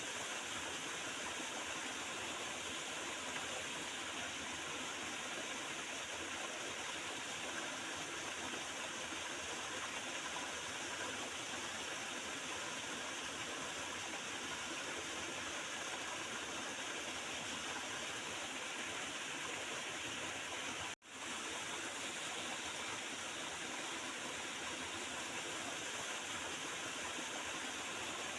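Small river flowing and gurgling steadily over its bed. The sound cuts out for an instant about three-quarters of the way through, then carries on unchanged.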